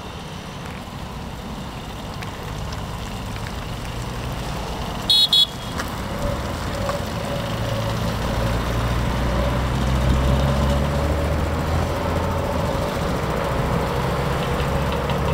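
A group of Vespa scooters riding up at low speed, their engines growing louder as they come closer. A horn beeps twice in quick succession about five seconds in.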